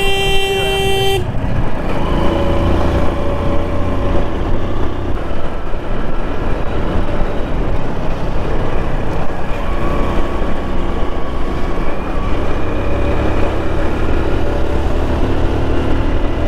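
Motorcycle engine running steadily at riding speed, with wind rush on the microphone. A vehicle horn is sounding one steady note at the start and cuts off about a second in.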